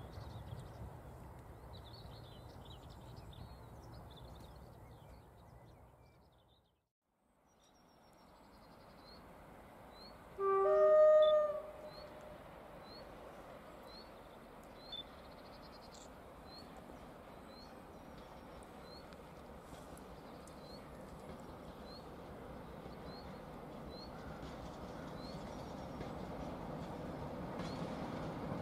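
Distant diesel locomotive sounding its two-tone horn once, about ten seconds in: a short low note, then a longer higher one. Its engine and wheels then grow steadily louder as it approaches. Birds chirp throughout, one repeating a short high chirp about once a second.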